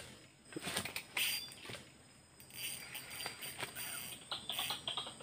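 Outdoor ambience: a steady high insect drone with scattered chirps and small clicks and rustles.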